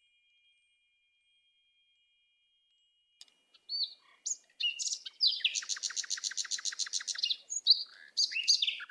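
Cartoon sound effects of the hovercraft's fan blades being fitted. After a near-silent start, a few short high chirpy tones lead into a rapid, even trill for about two seconds, then more short chirps.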